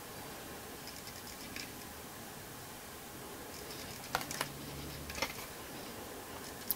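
Oracle cards being handled: a few light clicks and taps of cardstock, two sharp ones a little after four seconds in and two more about a second later, over a faint steady hiss.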